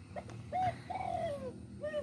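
A dove cooing: a short note, then arched coos with one longer, falling coo in the middle.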